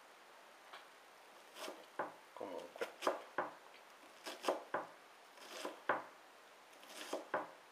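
Santoku kitchen knife chopping an onion on a wooden cutting board: sharp knocks of the blade on the board, about two a second, coming in small irregular clusters.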